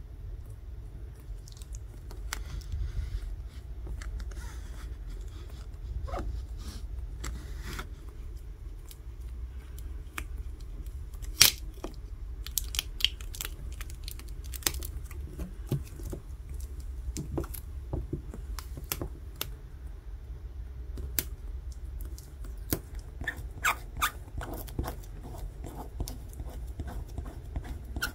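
Adhesive tearing as a Samsung Galaxy S20's battery is pried out with a playing card and its glue residue is peeled off: sticky crackling with scattered small clicks, one sharp click partway through, over a steady low hum.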